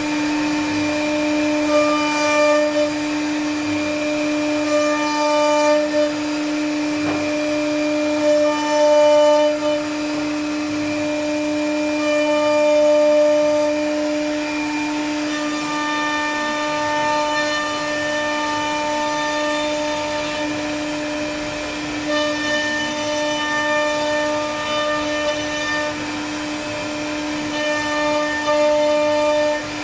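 Wood-carving CNC router spindle running with a steady hum as its cutter machines grooves into a wooden panel. Higher whining tones come and go over the hum as the cut goes on.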